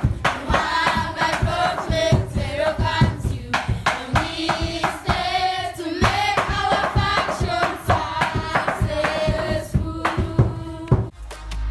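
A group of children singing a welcome song together in chorus, clapping their hands in rhythm. It cuts off near the end.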